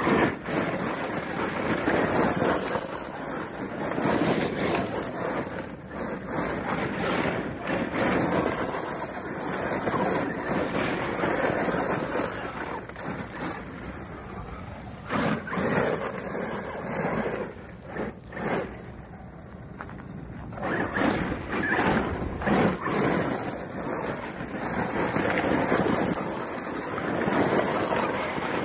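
Arrma Mojave RC truck with an X-Maxx brushless motor on 8S and 3.8-inch Pro-Line Trencher tyres driving hard on gravel: a rushing noise of tyres spinning and throwing gravel that surges up and down as it accelerates and slows, with a quieter stretch a little past the middle.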